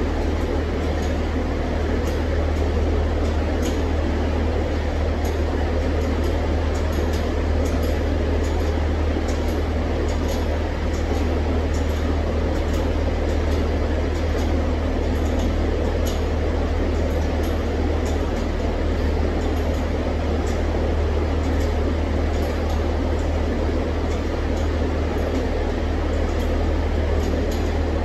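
Three-rotor rotary engine in a Mazda RX-7 idling steadily on the dyno, a low even drone with scattered light ticks over it.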